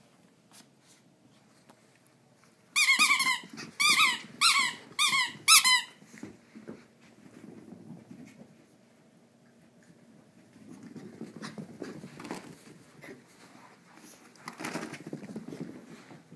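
Small dogs play-fighting: a quick run of about six sharp, high-pitched squealing yelps about three seconds in, then quieter low growling and scuffling as they keep wrestling.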